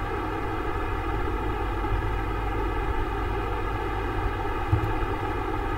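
Steady background noise with a low rumble and no speech. A single soft thump near the end.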